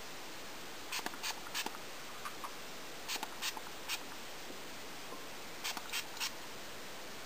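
Hand spray bottle squirting onto hair: short hissy spritzes in three quick groups of three, over a steady background hiss.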